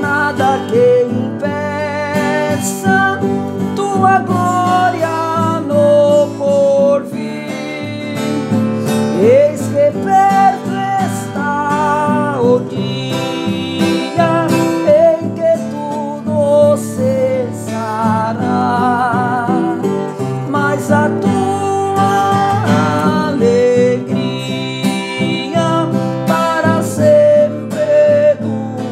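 A man singing a hymn with vibrato, accompanying himself on a strummed nylon-string classical guitar.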